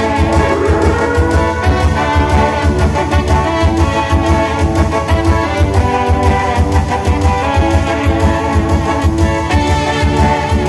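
Loud dance music with brass instruments over a steady, even beat.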